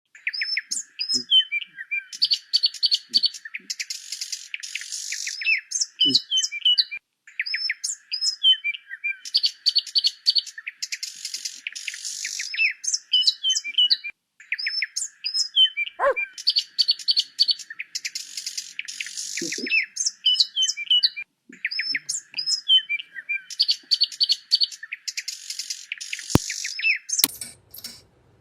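Birds chirping and trilling, a high busy chorus that repeats the same seven-second stretch four times over, like a looped birdsong recording.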